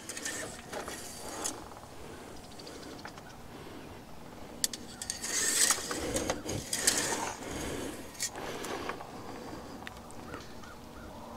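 Oil dipstick being slid into its tube and drawn out again to read the level: faint metal scraping, light clicks and hand rustle, busiest a few seconds in.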